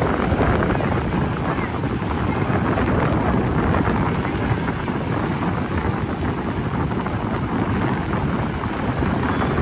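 Steady wind buffeting the microphone over waves breaking in shallow surf.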